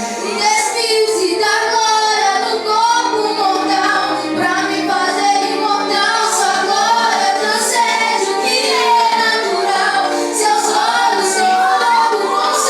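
High young voices singing a worship song over a musical backing.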